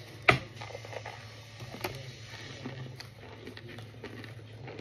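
Baked cornstarch chunks being bitten and crunched: a sharp crack about a third of a second in, a second one near two seconds, and small crackles between, over a low steady hum.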